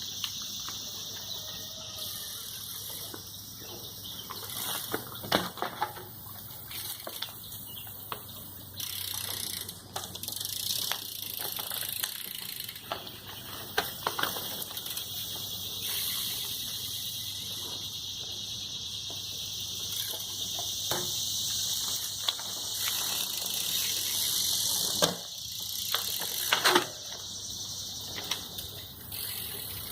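BMX bike being ridden during trick attempts: a steady hiss, as from tyres rolling on pavement, broken by several sharp knocks and clacks of the bike hitting the ground. The loudest knocks come near the end.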